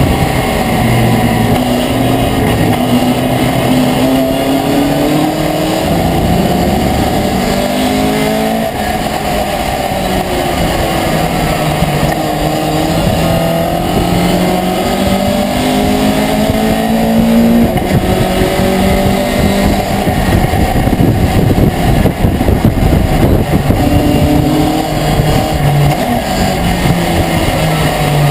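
Racing pickup truck's engine heard from inside the cab at racing speed, its pitch climbing under acceleration and dropping back again and again through gear changes and corners, over steady road and wind noise.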